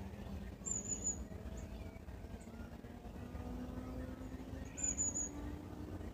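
A bird gives two short, high, thin whistled calls about four seconds apart, over a faint low hum.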